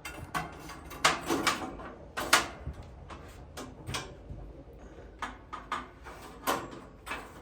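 Irregular sharp clicks and metallic clanks of hand tools and metal parts being handled, the loudest about a second in, just over two seconds in, and near the end.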